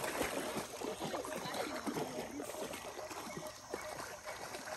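Shallow water splashing and sloshing, many small splashes close together.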